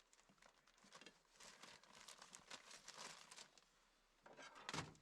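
Faint crinkling of a plastic bag of buns being opened and handled, with a brief louder rustle near the end.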